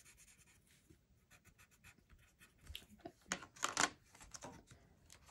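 Mondo Llama metallic colored pencil scribbling on paper in rapid, even back-and-forth strokes to fill a swatch, with a few louder scratchy strokes about three seconds in.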